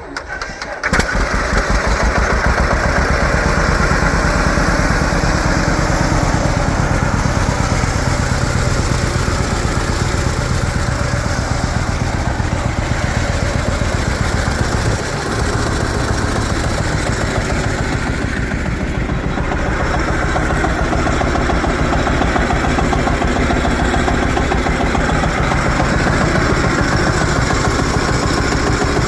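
1950 John Deere Model A's two-cylinder engine starts about a second in and then runs steadily with a rapid, even beat of firing pulses.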